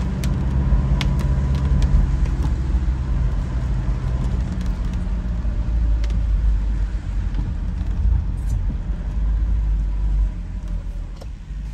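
Low, steady rumble of a motor vehicle engine, with a few faint clicks over it, fading out near the end.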